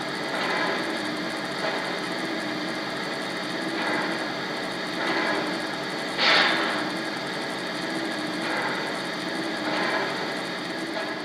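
O-gauge model train running on three-rail track: a steady mechanical hum with a gentle swell about once a second and a louder hiss about six seconds in.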